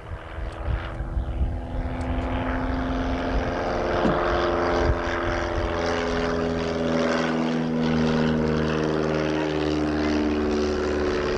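De Havilland DH.94 Moth Minor flying past, its four-cylinder Gipsy Minor engine and propeller giving a steady drone. The pitch sags slightly in the second half as it passes.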